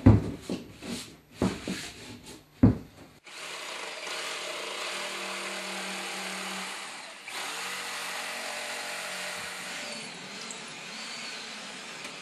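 A few knocks and scrapes as a fiber cement board is handled. About three seconds in, a jigsaw starts cutting a circle in the fiber cement board, a steady noise for about four seconds. Then a drill with a core bit runs steadily, boring a hole through the board.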